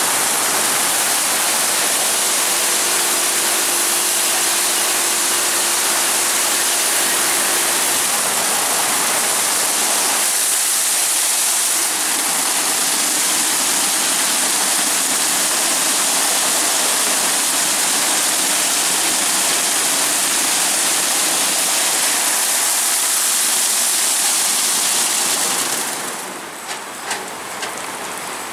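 WashTec Combiwash rollover car wash spraying water as its spinning brushes scrub a car: a loud, steady rush of spray and brush, with a faint steady hum for a few seconds early on. Near the end the spray cuts off, leaving dripping and a few ticks.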